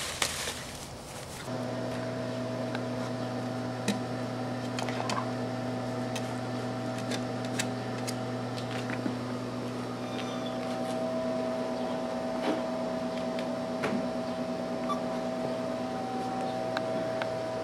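A steady mechanical hum with a few fixed pitches starts abruptly about a second and a half in and runs on evenly, with scattered faint clicks over it.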